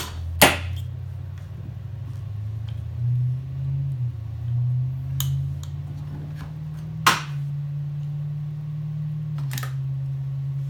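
Sharp metallic clicks and knocks, a few strikes spread over several seconds, as a sticking takedown pin is worked out of a Bushmaster AR-15's receiver, over a steady low hum.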